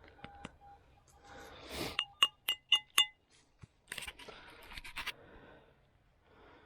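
A metal-detecting pinpointer sounds in short beeps. Then about six sharp metallic clinks ring out in quick succession, metal tapping against metal as a buried find is dug out.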